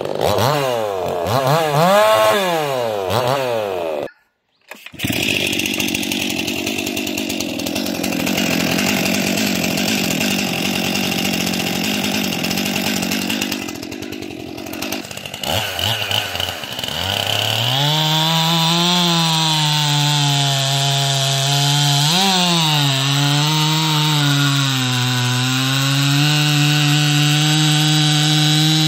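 Two-stroke chainsaw revving up and down a few times, then cutting out briefly. It then runs at sustained high revs, the pitch sagging and recovering again and again.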